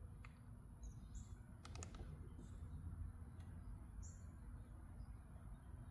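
Quiet outdoor background with a few short, high bird chirps and a steady high-pitched hum. Two faint clicks close together come just under two seconds in.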